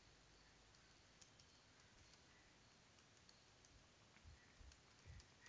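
Faint computer keyboard key clicks, scattered and irregular, as a command is typed, over near-silent room tone, with a few soft low thumps near the end.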